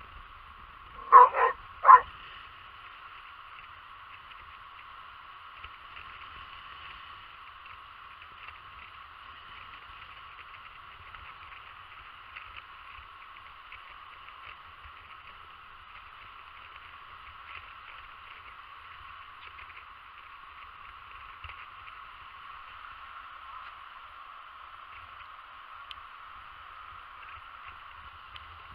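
A Basset hound gives a couple of short, sharp barks about a second in. Then only a steady background hiss remains.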